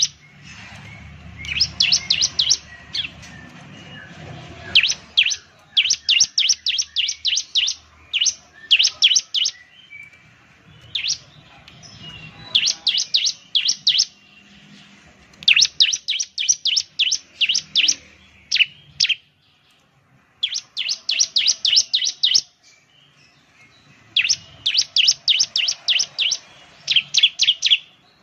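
Bar-winged prinia (ciblek) singing: repeated bursts of rapid, high chipping notes, each burst lasting one to two seconds, separated by short pauses.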